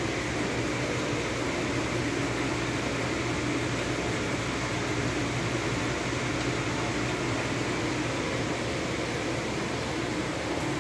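Steady hum and whir of the grow room's ventilation running, an even noise with a faint constant low drone.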